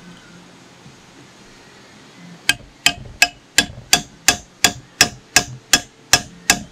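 Hammer tapping gently on a threaded tool set on the tappet, reseating the lower suction valve in a General Pump GP5132 pump head. About a dozen sharp, even metallic taps, roughly three a second, starting about two and a half seconds in.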